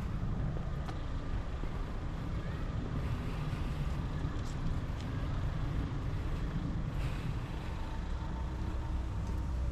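Road traffic passing: a steady low rumble of vehicles that grows heavier near the end.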